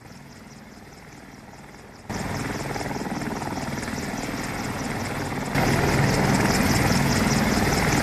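AH-64 Apache helicopter running, its rotor beating in a fast, even rhythm over steady engine noise. It is faint at first, jumps louder about two seconds in, and louder again about five and a half seconds in.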